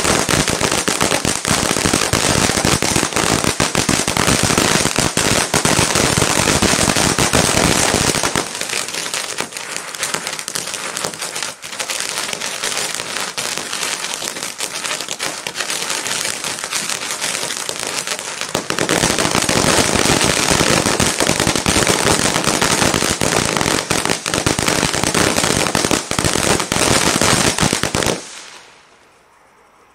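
EP-1089 ground fireworks fountain burning, a dense rush of crackling as it sprays sparks. It is loud for about eight seconds, softer for about ten, loud again, then stops suddenly near the end.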